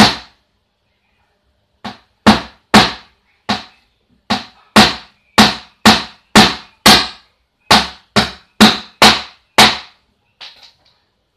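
Small hammer driving a nail into a wooden board: about fifteen sharp blows at roughly two a second, each ringing briefly, then a few lighter taps near the end.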